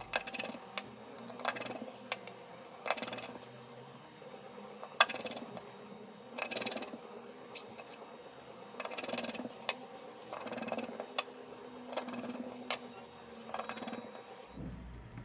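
Scattered small clicks and ticks with brief rustling: a precision screwdriver and fingers working the tiny screws and metal shield plates of an opened smartphone. One sharper click comes about five seconds in.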